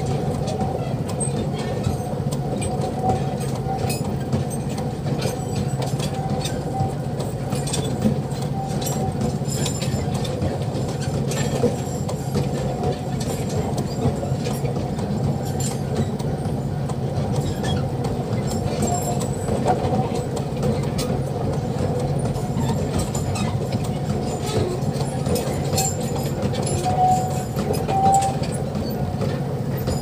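Loaded narrow-gauge sugarcane wagons rolling slowly across a level crossing, a steady rumble with scattered sharp clicks of wheels on the rail joints, heard from inside a car waiting at the crossing.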